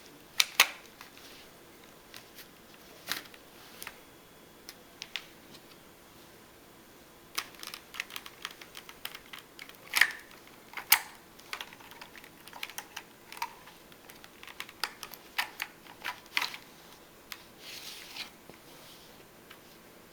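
Paper and cardboard parts of a homemade model shotgun being handled and taken apart: irregular light clicks and taps, the sharpest shortly after the start and twice around the middle.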